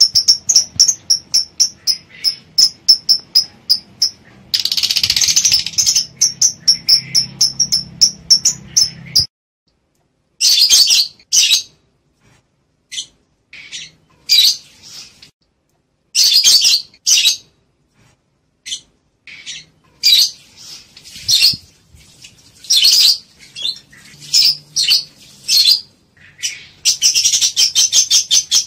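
Lovebirds calling in breeding condition. For about nine seconds there is a fast, even run of high, shrill chirps, about four a second, with a denser chattering stretch in the middle. Then it cuts off abruptly and gives way to separate short bursts of screechy chatter with gaps between, thickening again near the end.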